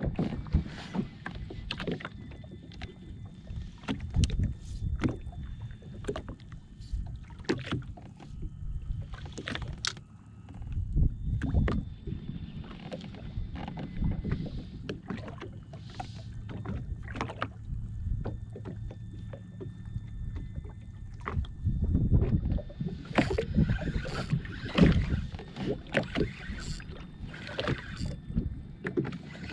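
Small waves slapping and knocking against the hull of a drifting jet ski, with irregular sharp clicks and knocks from fishing gear being handled.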